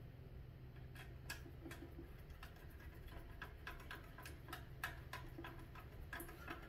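Faint clicking, about two to three clicks a second and not quite regular, as a hand screwdriver drives a self-tapping metal screw through a plastic lid handle.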